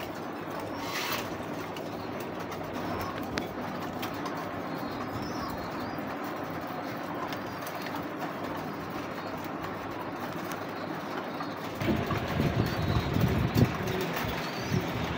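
Domestic pigeons cooing over a steady background hiss. About twelve seconds in, a louder, uneven low rumble sets in.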